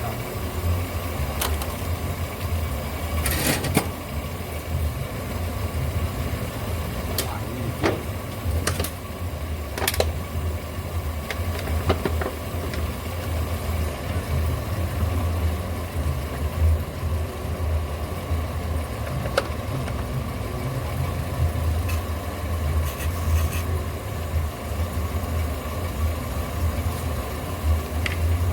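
Volkswagen Fox car engine running steadily in gear, turning the jacked-up front hub and brake disc, with a scattering of sharp scraping clicks from a knife-sharpening stone held against the spinning disc to grind down the lip that makes the new pads squeal.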